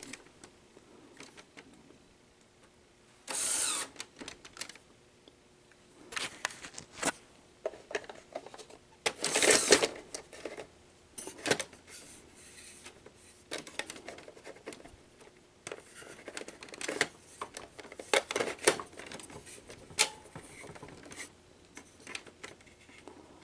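Scattered clicks, knocks and short mechanical whirs and rattles from a Sony SL-100 Betamax VCR's cassette housing being worked by hand. The housing is sticking, which the repairer puts down to dried-up lubrication.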